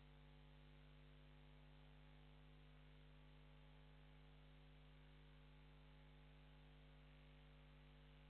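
Near silence with a faint, steady electrical mains hum and its overtones over a low hiss.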